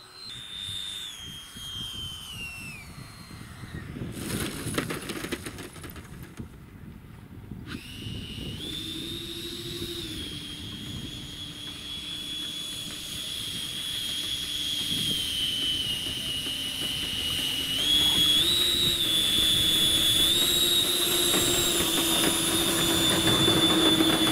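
Electric ducted fan of a radio-controlled model jet whining, dropping in pitch as it throttles back. A short stretch of rough noise comes about four seconds in. From about eight seconds the fan whines steadily, stepping up and down a little in pitch as the jet rolls over grass, growing louder near the end.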